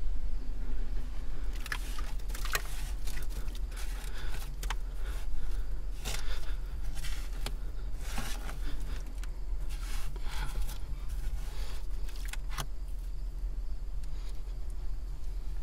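A small hand digging tool scraping and picking through damp privy fill in short, irregular strokes. A steady low hum runs underneath.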